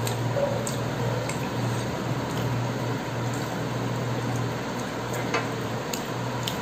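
Fingers squishing and mixing wet rice with curry on a steel plate, with a few light clicks against the metal, the clearest about five and a half seconds in, over a steady low hum.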